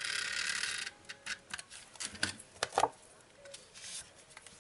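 Snail tape-runner adhesive drawn along the edge of a cardstock panel, a steady rasping zip that stops about a second in. It is followed by a scatter of light taps and clicks of paper being handled.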